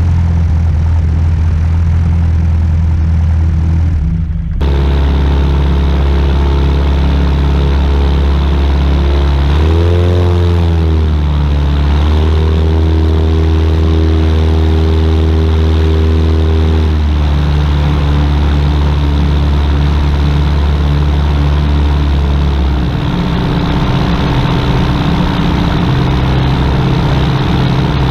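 Sonex homebuilt light aircraft's propeller engine running at low taxi power, heard close up from the wing. About ten seconds in the revs rise briefly and fall back, and the engine note changes again near the end.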